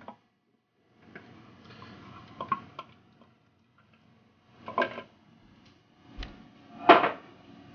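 A food-processor bowl and spatula knocking and scraping as bean puree is scraped out into a stainless steel stockpot: scattered light clicks, then a louder knock near the end.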